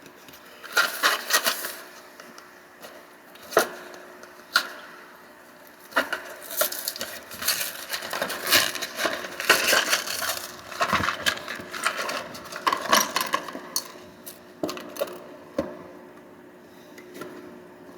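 A small cardboard LEGO minifigure mystery box being torn open and its contents handled. Irregular clicks and cracks mix with bursts of rustling, busiest in the middle and quieter near the end.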